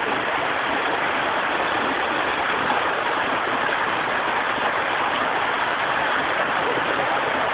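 Water rushing steadily down a water slide and splashing around a person sitting in the flow.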